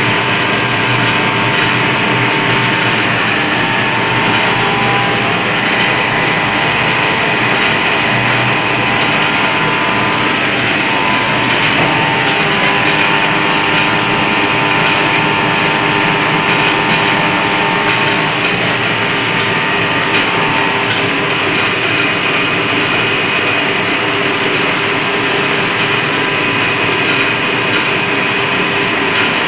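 Camphor tablet packaging machine running steadily: a continuous mechanical din with a steady hum and faint regular knocking from its moving parts.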